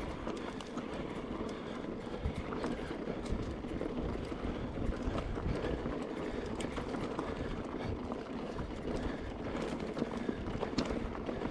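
Mountain bike riding over a rough, stony dirt trail. The tyres make a steady rolling rush, with frequent small knocks and clatters from the bike over the bumps.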